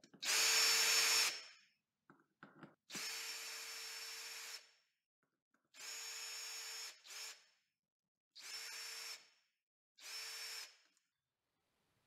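Ryobi cordless drill/driver running in five short bursts of about a second or a little more each, the first the loudest, backing out the mounting screws of wall light switches. A few faint clicks come between the first and second runs.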